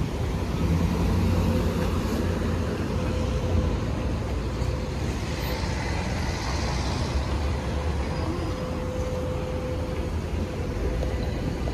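City street traffic: motor vehicles running and passing in a steady low rumble, with a thin steady hum through most of it and a passing vehicle's hiss swelling about halfway through.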